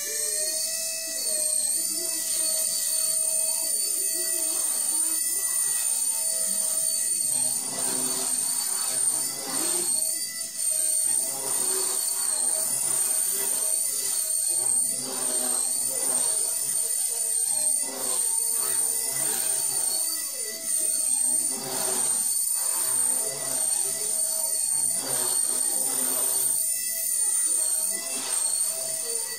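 Brushless-converted Nano CP X micro collective-pitch RC helicopter flying: its motor and rotors give a steady high-pitched whine that wavers slightly in pitch as it manoeuvres.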